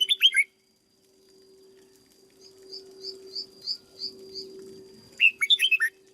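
Red-whiskered bulbul singing: a short, loud phrase of quick falling whistled notes right at the start, and another about five seconds in, with a softer series of about seven high chips in between. A steady low hum runs underneath.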